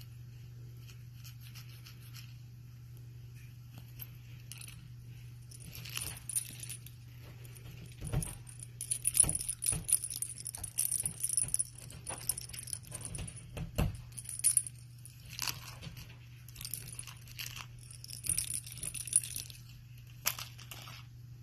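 Small jingle bell in a cat toy jingling in irregular bursts as a kitten bats, bites and kicks it, mixed with rustling on a fleece blanket. The jingling starts about six seconds in and stops shortly before the end.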